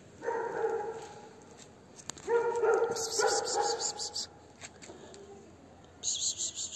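An animal calling twice: a short drawn-out cry just after the start and a longer one about two seconds in. A high, hissy, fast-rattling noise comes during the second cry and again near the end.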